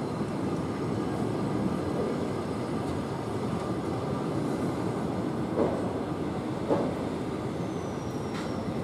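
Passenger coaches of an arriving train rolling past along the platform: a steady rumble of wheels on rail, with a few light knocks in the second half.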